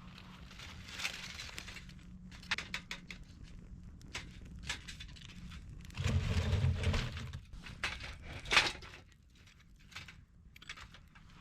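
Dry twigs snapping, crackling and rustling as they are handled around a small wood-burning stove, with irregular sharp cracks. A dull low rumble lasts about a second, about six seconds in.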